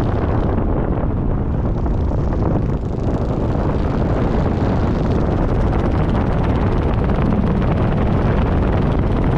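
Wind rushing over the microphone of a camera flying under a parachute canopy: a loud, steady roar, heaviest in the low end.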